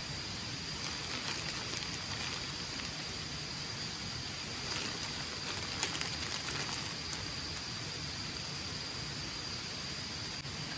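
Steady outdoor rushing noise with a thin, high, steady tone over it and scattered small crackles, most of them about five to seven seconds in.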